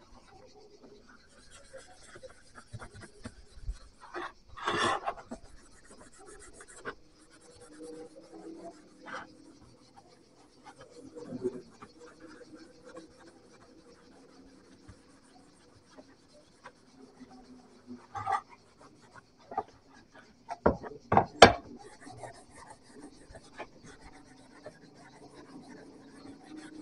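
Hand work on an old meat cleaver: irregular rubbing and scraping with scattered knocks and clacks, the loudest of them a pair of sharp clacks late on.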